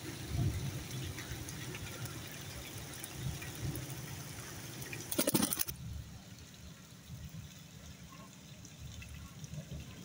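Water splashing as a parakeet bathes and flutters its wings in it, with a brief louder rattling burst about five seconds in.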